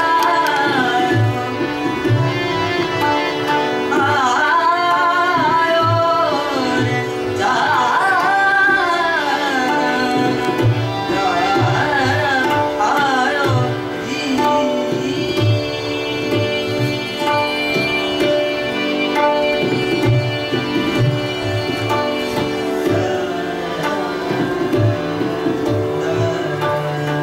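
Indian classical music played live on tabla and keyboard with a singing voice. For about the first fourteen seconds the voice sings sliding, ornamented phrases over steady held keyboard notes. After that the keyboard carries steadier sustained notes while the tabla keeps up a running pattern of deep strokes.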